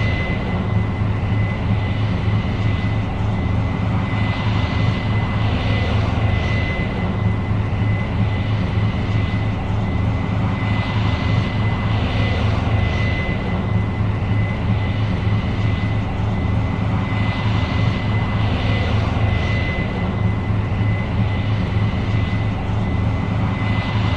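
Case IH 8230 Axial-Flow combine running steadily under load while harvesting soybeans: a deep, even engine drone with a constant high whine over it.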